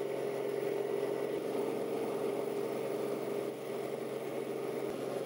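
Robinson R44 Raven II helicopter's Lycoming IO-540 engine and rotors running steadily, heard from inside the cabin during a landing. The steady hum dips slightly about three and a half seconds in.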